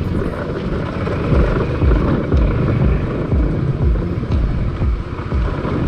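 A Qooder 400cc automatic four-wheeled motorcycle running as it rides over a rough dirt track. From about a second and a half in there is a low pulsing beat, about two a second.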